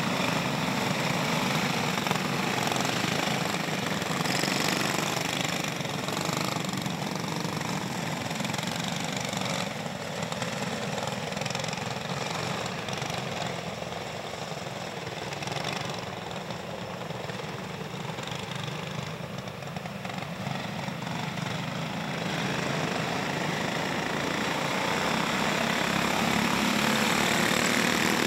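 Several dirt-track go-kart engines running on the track in a steady, buzzing drone. It fades somewhat in the middle and swells again near the end as the karts come back past.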